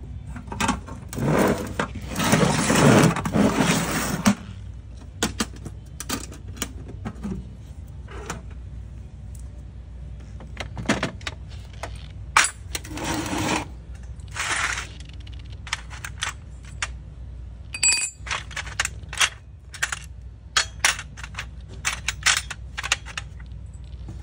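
Metal tools and bike parts clinking, clanking and scraping against each other and the metal tool box as hands rummage through it. The sound is mostly many separate sharp clinks, with a longer, louder stretch of rattling and scraping about two to four seconds in.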